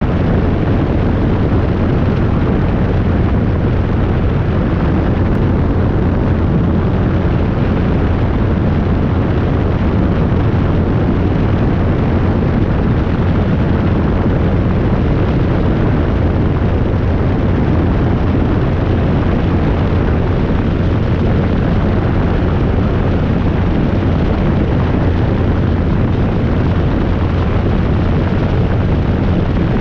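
Robinson R22 helicopter in flight: a steady, loud drone of the rotor and four-cylinder piston engine, heavy in the low end, with wind buffeting the microphone mounted outside the cabin.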